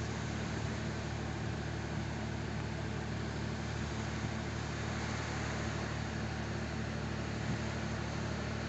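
Steady low hum of an engine running, over an even hiss consistent with small waves washing onto the beach.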